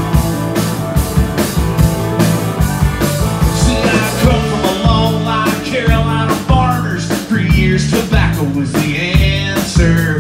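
Live country-rock band playing an instrumental break: a steady drum-kit beat with strummed acoustic guitar and keyboard, and a lead melody line coming in about four seconds in.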